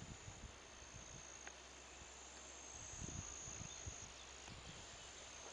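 Faint, steady insect chorus: a continuous high-pitched trill. A few soft low thumps come near the start and again about three seconds in.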